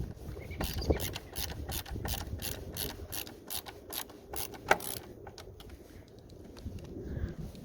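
Ratcheting hand tool clicking in quick runs as a screw is driven into the side mirror's lower housing, about three to four clicks a second; the clicking thins out about five seconds in.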